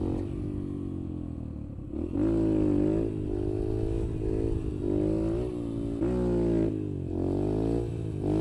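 Yamaha TT-R125's single-cylinder four-stroke engine running under load during a wheelie, its revs rising and falling about once a second as the throttle is worked to hold the front wheel up.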